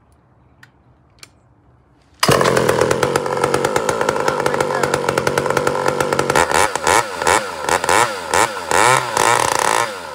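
Two-stroke Pioneer P-51 chainsaw cutting in loud after about two seconds of near quiet with a few faint clicks. It runs at high speed, and from about six seconds in it is revved up and down in quick repeated blips of the throttle, settling lower near the end.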